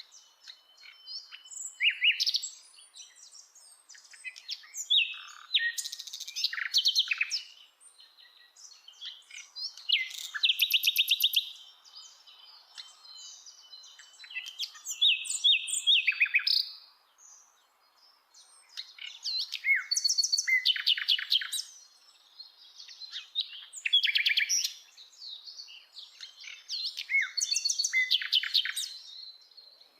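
Common nightingale singing: high, varied phrases every few seconds, many of them rapid runs of repeated notes, with short pauses between.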